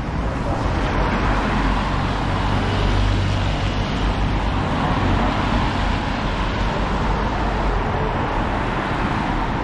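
Street traffic on a rain-wet road: a steady wash of engine and tyre noise with a low rumble underneath.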